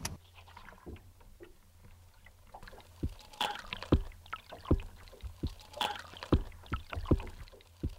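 Underwater hydrophone sound of a musky lure being retrieved. From about three seconds in come short knocks, roughly one or two a second and uneven, like a heartbeat, "thump, thump, thump", over a steady low hum.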